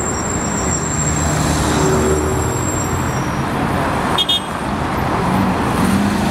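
Busy city road traffic: cars and minibuses driving past with engines running and tyre noise, and one brief high-pitched squeak about four seconds in.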